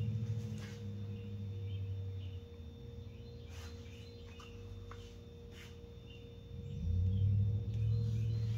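Faint clicks of an air rifle being handled as its magazine is checked for remaining rounds, over a low steady hum; no shot is fired.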